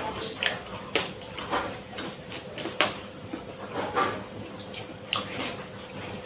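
Eating sounds of rice and side dishes eaten by hand: a string of short, irregular mouth smacks and clicks from chewing, spaced about a second apart.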